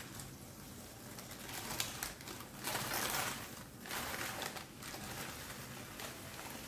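Crisp, oven-browned baking paper crinkling and rustling as hands pull it open from around a baked salmon fillet, in several spells of rustling, the loudest about three seconds in.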